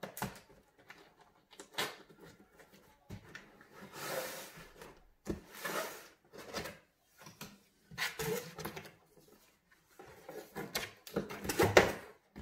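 Cardboard packaging being handled: a box's flaps pulled open and cardboard inserts lifted and slid, in a series of scrapes, rustles and small knocks, loudest near the end.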